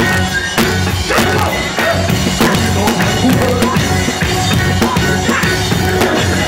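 Live reggae band playing at full volume, with the drum kit loud and close and a heavy, steady bass line underneath.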